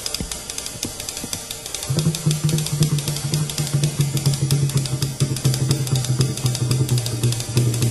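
A drum kit and percussion played solo: fast, dense strokes on the drums, with cymbals and hi-hat ringing over them. About two seconds in, a steady low tone comes in and holds beneath the playing, and the whole gets louder.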